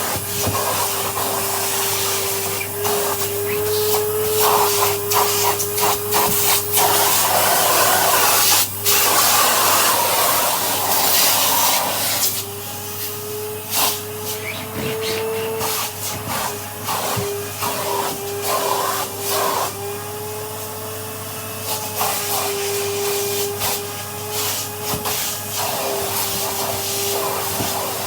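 Vacuum cleaner running with its crevice tool on an upholstered armchair, sucking up mouse droppings: a steady motor whine that shifts slightly in pitch as the nozzle is pressed and lifted, over a constant rush of air, with frequent short knocks and scrapes of the nozzle. The air rush gets louder for a few seconds in the middle.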